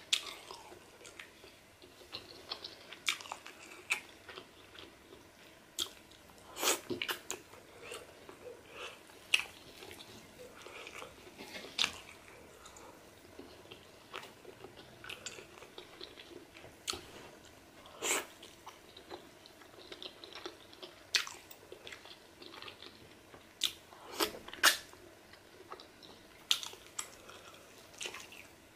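Close-miked chewing of pork pepper soup and garri fufu eaten by hand: irregular wet mouth smacks and clicks, a few of them sharply louder.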